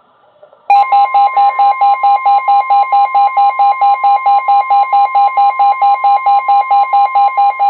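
Midland WR-120 weather radio alerting. A rapid pulsing beep, about four a second, starts about a second in, over the steady 1050 Hz NOAA Weather Radio warning alarm tone. Together they signal that a new warning is coming in.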